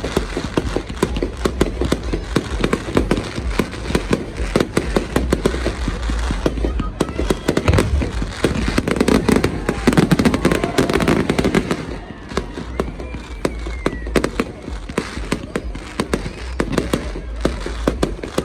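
New Year fireworks going off in a dense, rapid run of cracks and bangs, loudest in the middle, with the voices of a watching crowd underneath.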